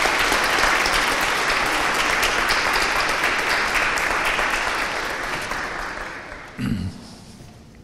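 An audience of students applauding in a welcome, a steady clatter of many hands that dies away about six seconds in. A short low thump comes near the end.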